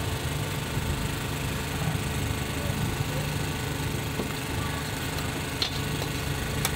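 A steady low mechanical drone, like an engine running, with a couple of short clicks near the end.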